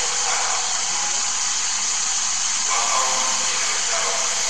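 A steady, even hiss with no breaks.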